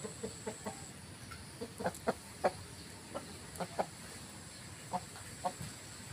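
Chickens clucking: a string of short, separate clucks at irregular intervals, the loudest a few seconds in.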